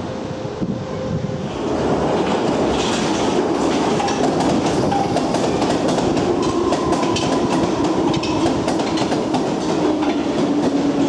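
London Underground D78 stock train running into a subsurface platform: rumbling with rapid clicking of wheels over rail joints and a motor whine that slowly falls in pitch as the train slows. For the first second or two, wind buffets the microphone.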